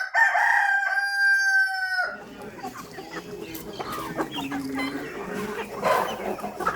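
A rooster crows once, a single long call of about two seconds right at the start, followed by quieter clucking.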